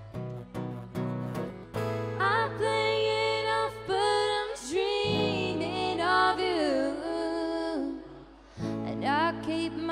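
Live acoustic guitar with a woman singing: the guitar is strummed for about two seconds, then she sings long held notes that slide up and down over ringing chords. After a short lull near the end she starts singing again.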